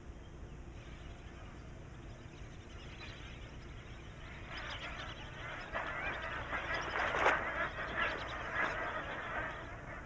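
A flock of magpie geese honking, many calls overlapping. The calls start about halfway in and build up after a few quiet seconds.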